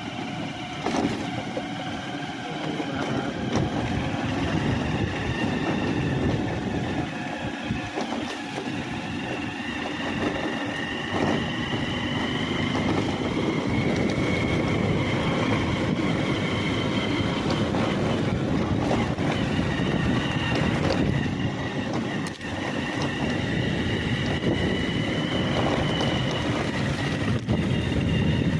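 A heavy vehicle or machine running steadily, a continuous rumble with faint high whining tones, growing gradually louder.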